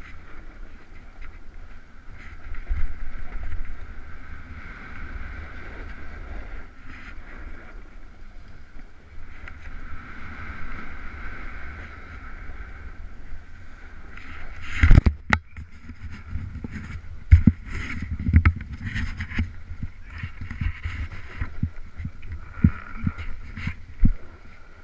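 Skis or a snowboard running downhill over packed snow: a steady scraping hiss of edges on snow over a low rumble of wind on the microphone. From about halfway through come a series of sharp knocks and thumps as the ride gets bumpy.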